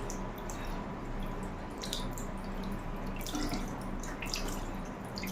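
Water dripping and trickling into a sink basin, with a few sharp drops or ticks over a steady wash of water noise.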